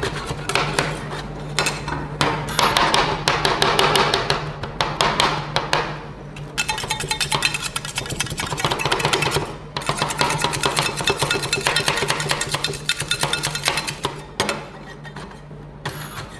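Metal spatulas on the frozen plate of a rolled-ice-cream griddle: rapid chopping taps and long scraping strokes. A steady low hum runs underneath.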